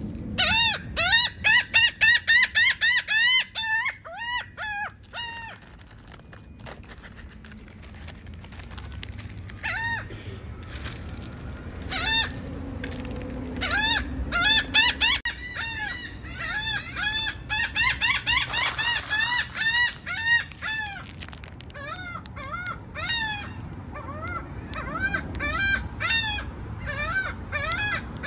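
Rowdy gulls calling: a fast string of calls, several a second, for the first five seconds, then scattered and overlapping calls from more than one bird, over a low steady background rumble.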